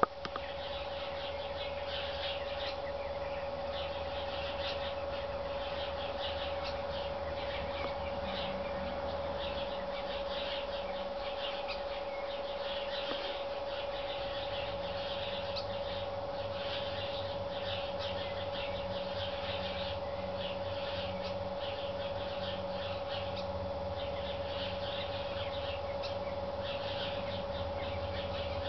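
House sparrows chirping in alarm, rapid and unbroken, with the alarm calls of a Eurasian blackbird among them, all set off by a sparrowhawk at its kill. A steady hum runs underneath.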